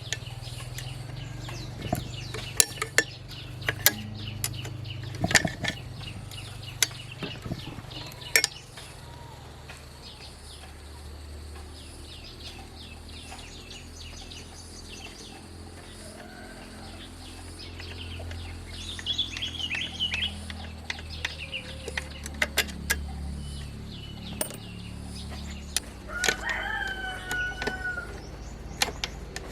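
Repeated sharp metallic clinks and taps of hand tools at work, thickest in the first nine seconds, over a low steady hum; near the end a rooster crows once.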